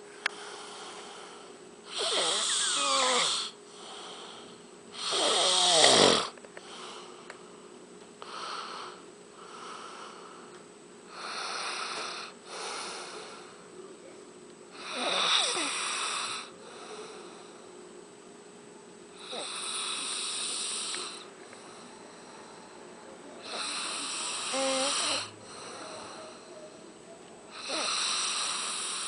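A man snoring in repeated loud bursts a few seconds apart, with softer breaths between; the first two snores carry a falling whistle-like tone.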